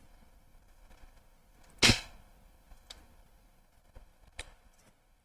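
A single short, sharp click about two seconds in, then a few faint ticks, as ice cream is eaten from a tub with a spoon.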